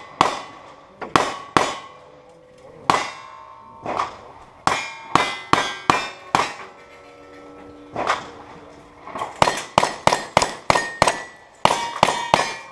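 Bullets striking steel targets in a string of rapid shots: each hit a sharp clang with a brief ringing tone, several a second, with short pauses between strings.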